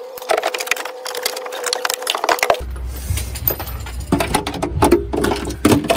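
Rapid clicking and crackling of gloved hands working plastic wiring connectors and harness clips on a Tesla Model 3 battery pack, over a steady faint hum. About two and a half seconds in, the sound changes abruptly to a low drone with a few scattered knocks.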